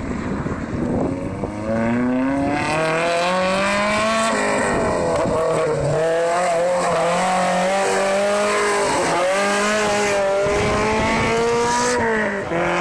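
Rally-prepared Toyota Corolla with a 4A-GE 'Black Top' four-cylinder engine driven hard on a gravel stage. The engine revs up, and its pitch drops back at each gear change several times.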